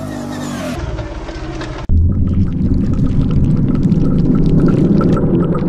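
An ATV engine running steadily for about the first two seconds. Then a sudden cut to a loud, low rumbling intro sound effect with faint regular ticking, which fades out near the end.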